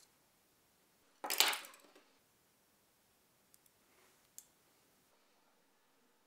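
Fly-tying handling noises at the bench: one short scraping rustle about a second in, the loudest sound, then a few faint clicks of tools.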